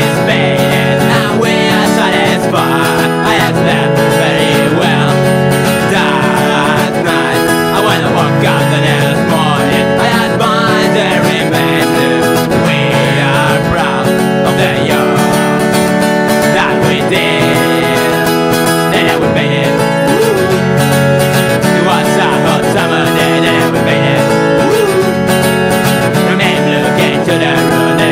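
Acoustic punk song with steadily strummed acoustic guitar.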